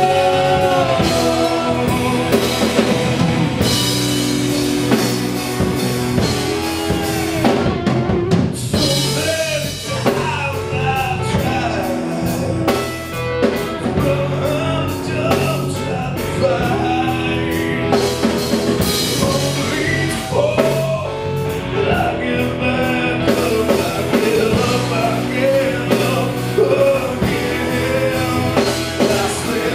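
Live rock band playing: drum kit, electric guitars and electric bass, with a man singing lead over them.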